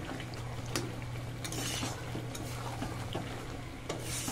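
A spatula stirring and scraping chicken curry in a metal pan, with scattered clicks of the utensil against the pan and two brief scrapes, over a steady low hum.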